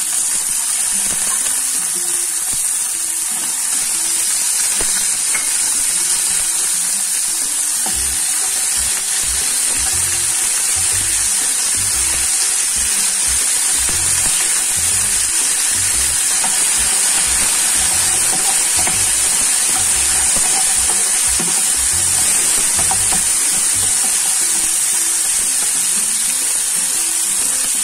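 Peas, chopped tomatoes, sweet corn and peanuts sizzling steadily in hot oil in a non-stick frying pan as the vegetables go in. Soft knocks of a spatula stirring the mix come from about eight seconds in.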